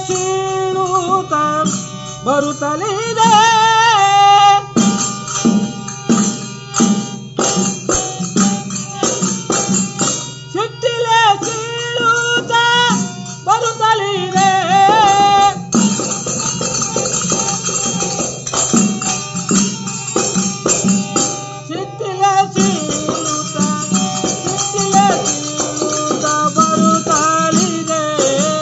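Kannada devotional bhajan sung by a group of men, with rhythmic hand percussion and a steady low drone beneath the voices.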